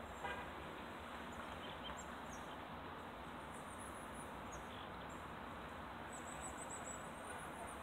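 Quiet outdoor ambience: a steady faint hiss with small birds chirping in short, high trills, most clearly around the middle and again near the end. A brief pitched toot sounds just after the start.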